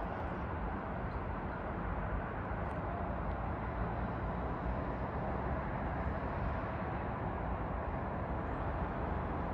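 Steady urban ambience: a constant low hum of distant road traffic across the city, with no single sound standing out.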